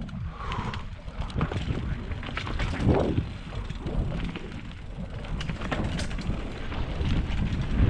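Mountain bike riding down a dirt trail: wind buffeting the microphone over a steady low rumble of tyres on dirt, with the bike clattering and rattling in many short knocks over bumps.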